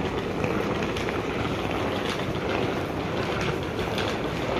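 Steady rumble of wheeled suitcases rolling across a tiled floor, with footsteps and faint irregular clicks over it.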